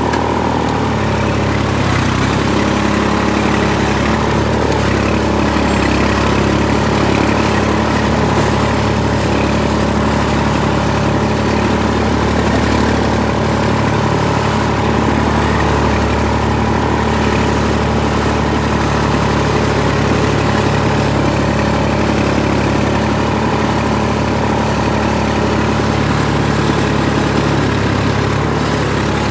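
Massey Ferguson 148 tractor's three-cylinder diesel engine running steadily at low speed while the tractor drives along a dirt track, heard from the driver's seat.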